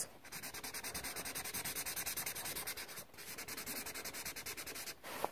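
Imagine Ink magic marker tip rubbing rapidly back and forth on a colouring-book page as an area is coloured in. The strokes are quick and even, with a brief pause about three seconds in.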